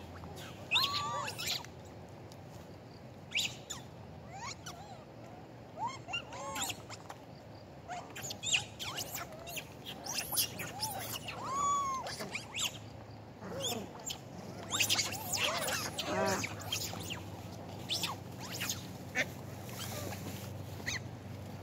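A troop of long-tailed macaques making short high squeaks and chirps. Each call rises and falls, and they come scattered all through, among brief clicks.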